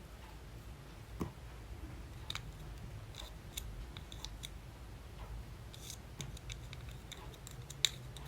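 Scattered small clicks and crackles from slime and makeup being handled and mixed, with one sharp click near the end.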